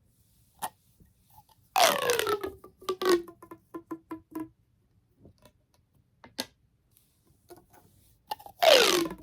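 Plastic pop tube fidget toys being stretched and pushed back together. Two loud pitched pops that fall in pitch, about two seconds in and just before the end, with a string of small pops and clicks between them.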